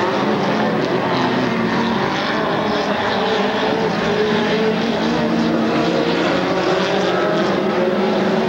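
Several off-road race car engines running together on a dirt track, their pitch rising and falling as the cars accelerate and back off through the turns.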